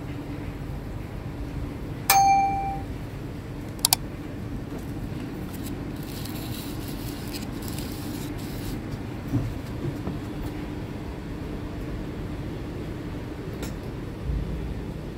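Steady low background hum, broken about two seconds in by a single metallic clang that rings briefly on one clear tone. A quick double click follows near four seconds, and a soft low thump comes near the end.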